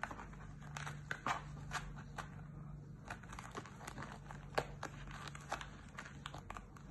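A kitten biting, clawing and kicking at a fabric slipper on a tile floor: irregular small clicks, scratches and rustles. A low steady hum runs underneath.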